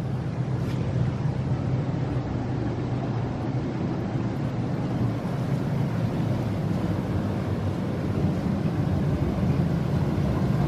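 Hot tub jets running: a steady low pump hum under the rush of churning water, growing a little louder near the end.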